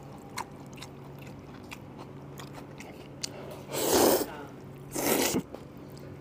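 A man slurping noodles from a bowl: two loud slurps, about four and five seconds in, after a few seconds of quiet chewing with small clicks.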